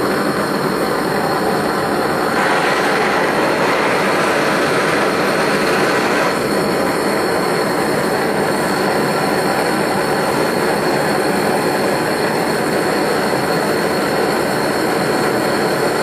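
Bernz-O-Matic JT539T swirl-flame propane torch burning into a small melting furnace: a loud, steady rush of burning gas. Its tone brightens for a few seconds, starting about two seconds in.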